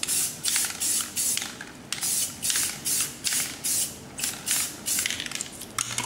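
Aerosol spray paint can spraying black paint in short, repeated hissing bursts, about two to three a second.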